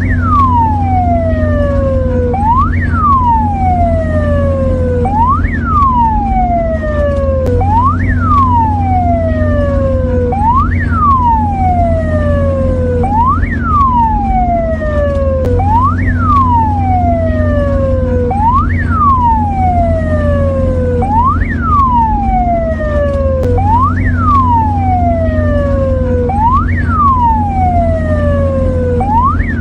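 Mexican ambulance siren wailing: each cycle jumps quickly up in pitch, then slides slowly down, repeating roughly every two and a half seconds over a steady low hum.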